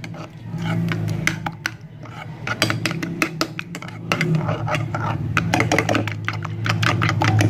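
A metal spoon beating a raw egg with spices in a bowl: rapid, irregular clinks and scrapes against the bowl, coming in several quick spurts. A steady low hum runs underneath.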